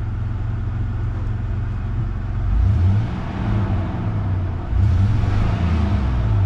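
Third-generation Toyota 4Runner engine running in neutral and revved twice: briefly about two and a half seconds in, then longer from about five seconds on. The engine has an intermittent misfire, which the owner suspects is a bad fuel injector.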